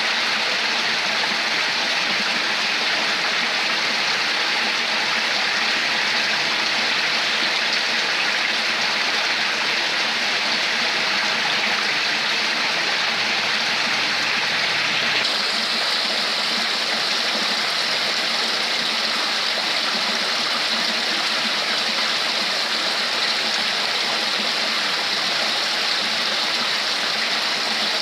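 Steady rushing and trickling of flowing stream water. The sound changes character abruptly about halfway through.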